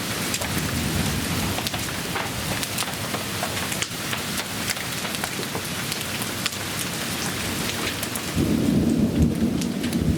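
Thunderstorm downpour of rain and large hail pelting down, with many sharp individual hits. About eight seconds in, a low rumble of thunder swells up for a couple of seconds.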